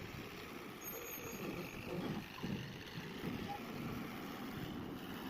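Mahindra backhoe loader's diesel engine running steadily.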